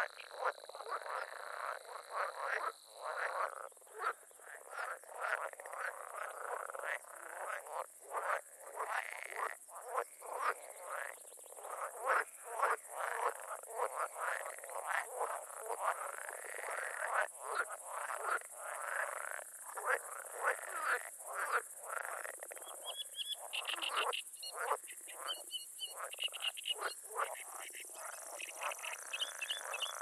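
A chorus of frogs croaking in a wetland, many short calls overlapping densely and without pause. A steady high hiss runs above them, and in the last quarter a faster, high-pitched pulsing trill joins in.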